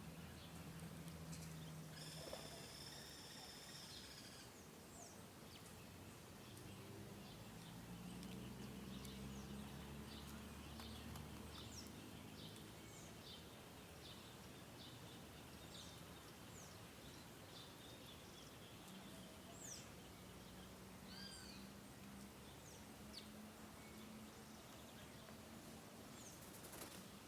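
Faint chorus of small birds chirping and calling, with many short, sharp notes spread throughout and a longer, held call about two seconds in. A low, steady hum runs beneath.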